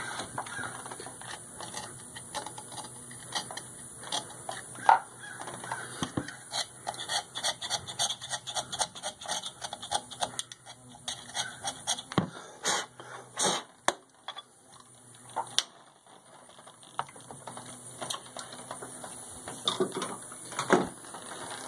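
A hand tool scraping and brushing old gasket residue off the metal flange of a tractor's thermostat housing, in quick scratchy strokes. There are a few louder knocks of tool on metal about halfway through.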